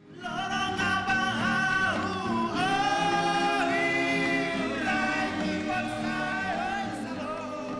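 A choir of voices singing together in harmony, holding long notes that slide from one pitch to the next; it fades in at the very start.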